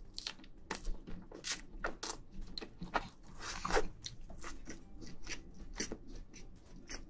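Close-miked chewing of a mouthful of sponge cake with whipped cream: an irregular run of wet mouth smacks and clicks.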